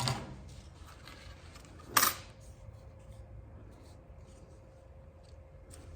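Paper birch bark being worked into veneer strips: one short, crisp cutting or tearing sound about two seconds in, then a few faint light ticks over a low steady hum.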